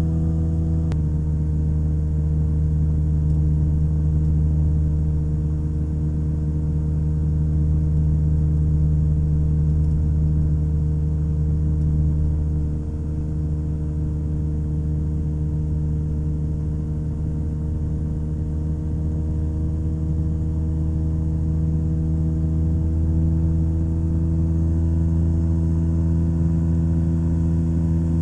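Rotax 582 two-stroke engine of a Chinook ultralight running steadily in flight, one even drone that drops a little in loudness about thirteen seconds in.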